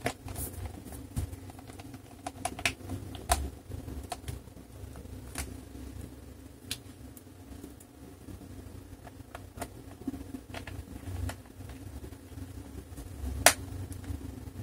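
Scattered small clicks and taps of a screwdriver driving screws back into a laptop's base, irregular, with one sharper click near the end, over a steady low hum.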